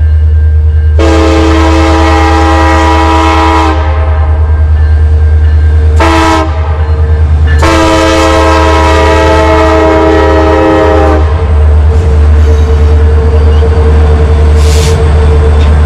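Alaska Railroad EMD SD70MAC diesel locomotives hauling a passenger train past, the lead locomotive's horn sounding a long blast, a short one and another long one for a grade crossing over the steady low rumble of the diesel engines. After the horn the locomotives and cars rumble past on the rails.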